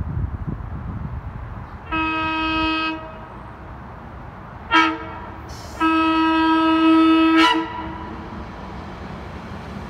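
SEPTA Regional Rail train's air horn sounding as it approaches the station and road crossing: a blast of about a second, a short toot, then a longer blast of nearly two seconds. This is the long–short–long end of the standard grade-crossing horn signal.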